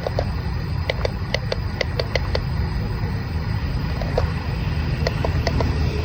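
Remote-control toy excavator working in sand: a steady low rumble with scattered short clicks and clinks.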